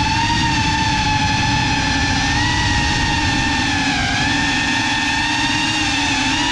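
Cinewhoop FPV drone's brushless motors and propellers whining steadily, heard up close from the camera riding on the drone; the pitch wavers slightly with throttle and dips briefly about four seconds in.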